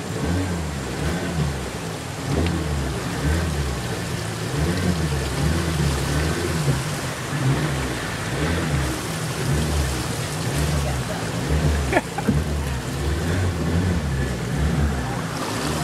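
A river boat's outboard motor running, its pitch rising and falling over and over, over a steady rush of water noise. A sharp knock about twelve seconds in.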